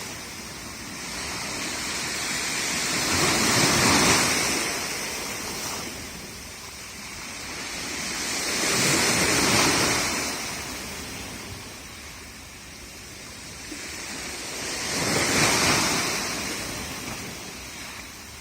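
Black Sea waves breaking and washing on the shore, three waves about five to six seconds apart, each swelling to a loud rush and then ebbing.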